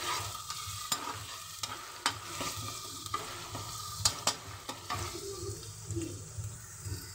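Chopped onions sizzling in hot oil in a kadhai as a spatula stirs them, with several sharp clicks and scrapes of the spatula against the pan.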